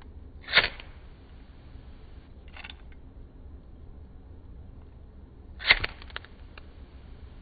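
Flint-wheel lighter being struck: a sharp scrape-click about half a second in and a fainter one about two seconds later, then a loud strike near the end that throws sparks and lights the flame, followed by a few small clicks.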